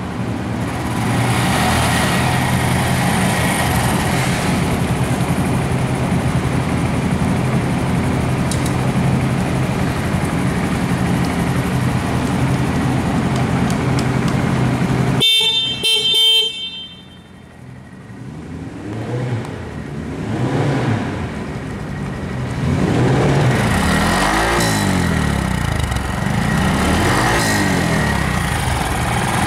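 Honda Monkey 125's single-cylinder four-stroke engine idling steadily. About halfway through, the horn sounds for about a second. In the second half the engine is revved up and down several times.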